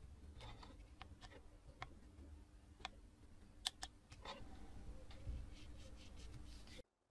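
Faint, scattered clicks and taps of metal multimeter test probes touching the LEDs on a lamp's circuit board, over a low steady hum. The sound cuts off abruptly near the end.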